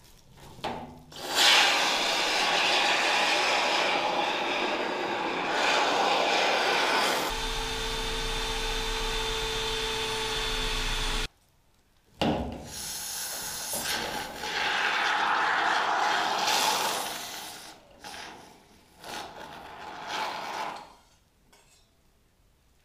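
Tools working wood, in a few edited clips: several seconds of rough scraping, then a steadier machine sound with a low hum that cuts off abruptly. After a second's silence, shorter spells of scraping follow.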